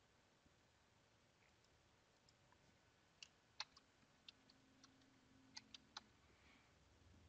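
Faint computer keyboard keystrokes: about nine quick clicks over roughly three seconds, typing a password, starting a few seconds in. Otherwise near silence.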